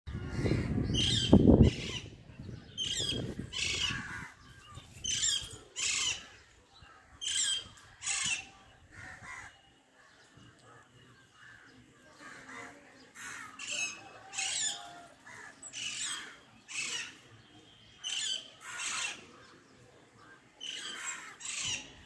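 Parakeet giving short, harsh, high screeching calls, often in pairs, roughly one a second with a short lull midway. A loud low rumble of wind or handling on the microphone in the first two seconds.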